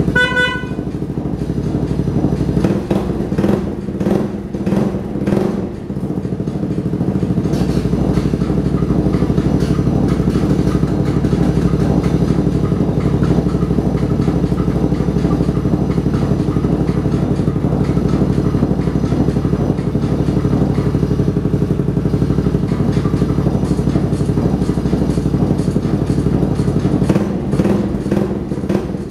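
Custom Yamaha Majesty 250 big scooter's single-cylinder engine running, revved in short blips for a few seconds from about two seconds in, then running steadily. There is a short electronic beep right at the start.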